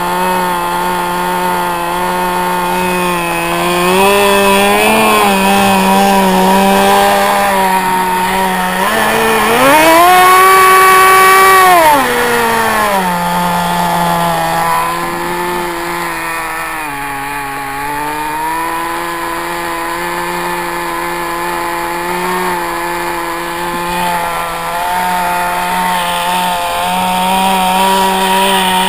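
SH .07 nitro glow two-stroke model engine with a tuned pipe, a converted RC car engine, running an APC 5x3 propeller on a hand-held RC plane. It runs at a low steady speed, is throttled up sharply for about three seconds from about nine seconds in, dips briefly a little later, and starts to rev up again at the very end.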